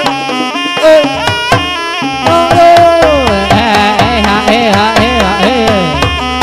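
Live traditional Javanese folk music: a melody line with sliding, bending pitches played over steady hand-drum strokes.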